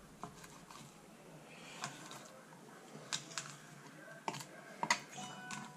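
A filleting knife clicking against a cutting board as it cuts the belly bones from a whiting fillet: a handful of faint, irregular ticks.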